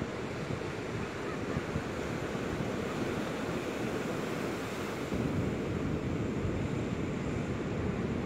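Ocean surf washing on the shore with wind rushing over the microphone, a steady low noise that gets a little louder about five seconds in.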